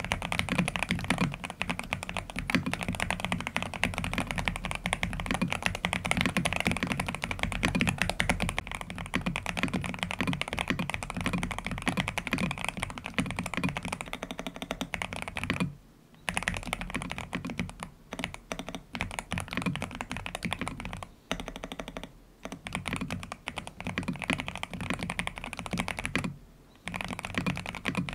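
Fast, continuous typing on an Angry Miao Cyberboard Terminal mechanical keyboard fitted with Aqua King linear switches and a three-layer tape mod. The typing breaks off briefly a few times in the second half.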